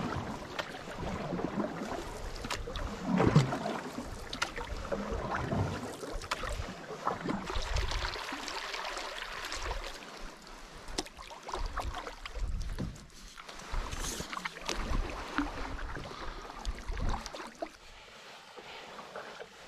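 Canoe paddles dipping and pulling through calm water, with splashing and dripping between strokes and a few low thumps, the loudest about three seconds in.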